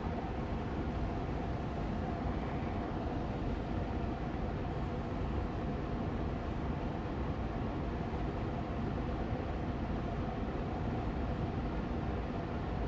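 Austin Air Allergy Machine air purifier fan running steadily on medium speed: an even rushing hum with a faint steady tone in it.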